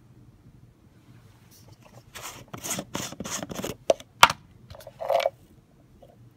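Plastic screw lid of an empty pre-workout powder tub being twisted and pulled off: a run of quick scraping strokes about two seconds in, two sharp clicks, then one louder scrape as the lid comes free.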